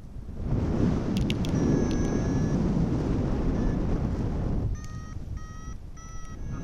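Wind rushing over the microphone for the first four seconds or so, then a paragliding variometer beeping in short regular beeps, about two or three a second. A vario beeps like this as its climb tone, the sign of rising air.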